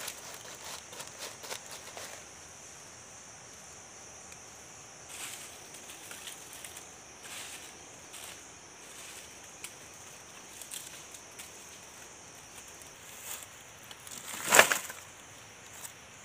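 Sporadic rustling and light clatter of dry split wooden strips and leaf litter being handled, with one louder crackling rustle near the end. Under it runs a steady, high-pitched insect drone.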